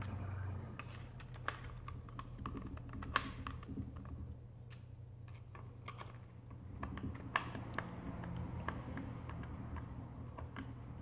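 Phillips screwdriver turning and seating a screw in a standing-desk drive motor's metal housing: scattered small irregular clicks and scrapes of metal on metal.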